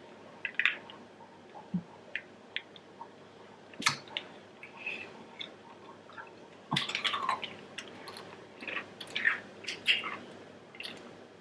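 Close-up mouth sounds of sucking and slurping on plastic freeze-pop sleeves, with scattered wet lip smacks and clicks, busier in the second half.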